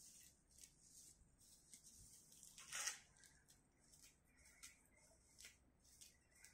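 Faint rustling and tearing of weeds being pulled by hand from cracks in concrete: a string of short rustles, with one louder tear about three seconds in.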